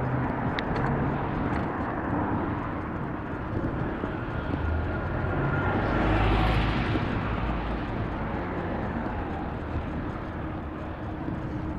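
City road traffic heard from a moving bicycle: a steady rumble of traffic and road noise, swelling as a vehicle passes close about six seconds in, then easing off.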